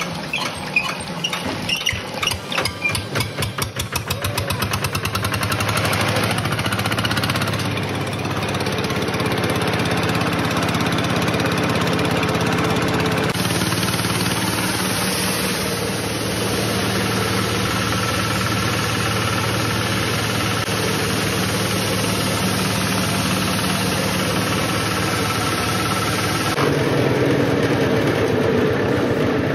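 Kubota single-cylinder diesel engine being started: separate firing strokes quicken over the first few seconds until it settles into a steady run, driving a coffee huller.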